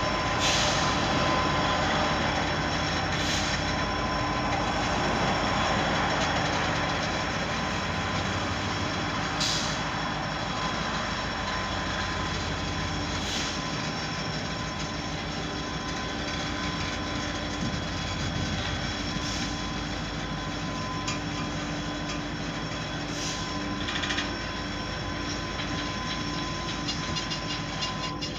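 Freight train boxcars rolling slowly past, steel wheels rumbling on the rails with a thin steady squeal and a few sharp clicks.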